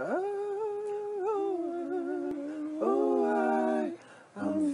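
One man's multi-tracked a cappella vocals, wordless humming: a single voice slides up into a long held note and steps down, then more layered voices join in a held harmony about three seconds in, break off briefly near the end, and come back in.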